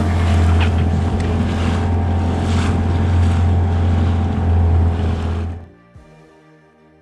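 Motorboat engine running steadily while trolling, with wind and water noise over it. It cuts off abruptly about five and a half seconds in, leaving faint music.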